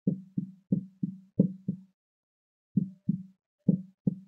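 Marker pen writing on a whiteboard: a quick run of short, low thuds, one per stroke, about three a second. There is a pause about two seconds in, then another run of strokes.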